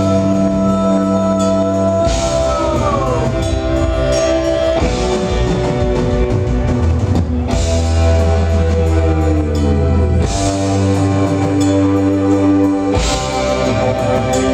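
Progressive rock band playing: a drum kit under long, held keyboard or guitar chords. The held notes slide down in pitch twice, at about two seconds in and again near ten seconds.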